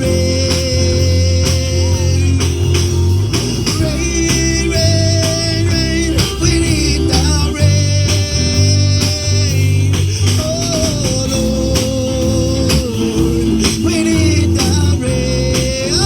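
Live gospel song: a singer holding long notes over a band with a steady beat and tambourine.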